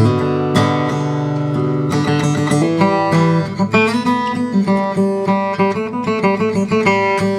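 OM acoustic guitar with Brazilian rosewood back and sides and a torrefied Adirondack spruce top being played solo. A chord rings out, then from about three seconds in comes a run of quickly picked notes.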